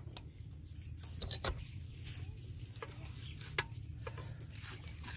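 Scattered light clinks and knocks as the metal pipe and steel joint of a hand pump are handled and fitted together, over a low steady rumble.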